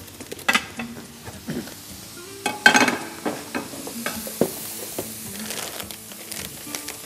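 Chicken strips and vegetables sizzling in a frying pan, with several sharp knocks and clatters of kitchen utensils against pans and dishes, loudest about three seconds in. Soft background music underneath.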